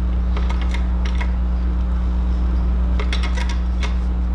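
Hydraulic floor jack being pumped to raise a motorcycle engine: two runs of short metallic clicks and clanks, about half a second in and again about three seconds in, over a steady low hum.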